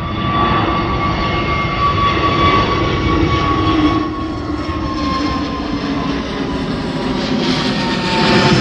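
Jet airliner taking off, its engines running at full power in a loud, steady roar with a high whine that slowly falls in pitch. The roar swells suddenly at the start and grows louder again near the end.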